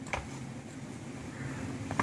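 Spoon stirring dry ground flaxseed powder in a glass bowl: a faint scraping, with two light knocks of the spoon against the bowl, one just after the start and one near the end.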